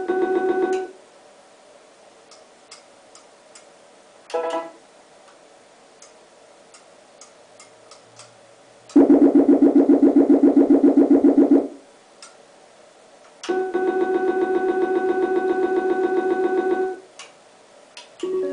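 Video slot machine's electronic beeps as the pay lines and bet are stepped up: a short jingle at the start, a brief one about four seconds in, then two runs of rapid repeating beeps, about ten a second and lasting around three seconds each, with faint clicks between them. A new tune starts right at the end.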